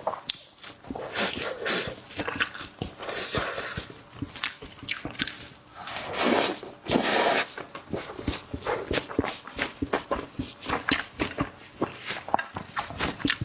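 Close-up mouth sounds of eating: rapid wet chewing and smacking of fatty braised meat, with one longer, louder noisy stretch about six seconds in.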